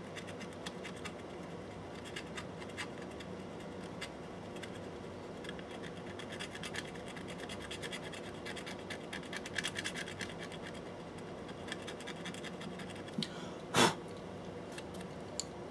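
Light scratching and small irregular clicks of hand-tool work, busiest in the middle, with one brief louder noise near the end.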